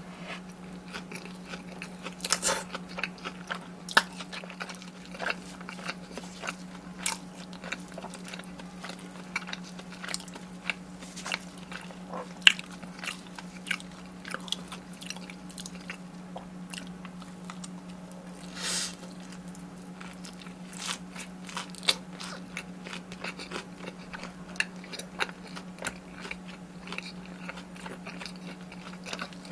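Close-miked eating: irregular crunchy bites and chewing of fried, batter-coated Korean corn dogs and snacks. A steady low hum runs underneath.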